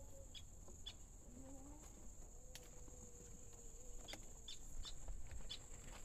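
Faint outdoor ambience: a steady high-pitched insect drone, with short bird chirps now and then, most of them from about four seconds in.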